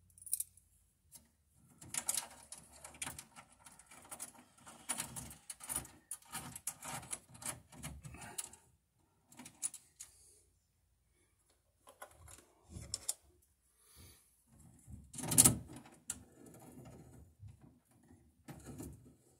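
Irregular clicks, taps and rustling of wires being bent and worked into a metal breaker panel, with one sharper knock about fifteen seconds in.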